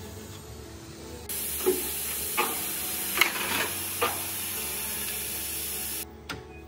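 A steady hiss like escaping compressed air that starts abruptly about a second in and cuts off near the end, with four knocks about 0.8 s apart over it.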